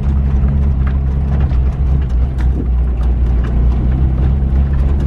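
Suzuki Sierra 4x4's engine running at a steady speed while driving, with light knocks and rattles over it.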